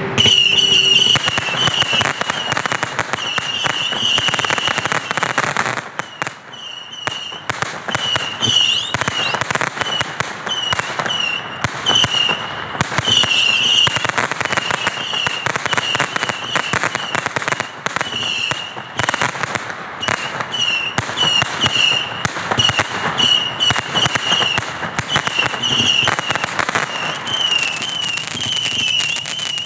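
Black Cat Saturn Missile Base 250-shot battery firing a rapid, continuous volley of small whistling missiles: a high wavering whistle over dense cracks and pops. It eases off briefly about six seconds in and again near nineteen seconds.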